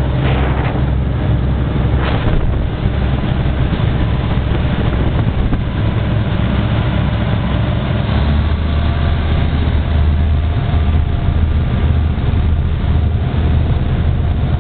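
Motorboat running at speed: a steady engine rumble mixed with the rush of the churning wake.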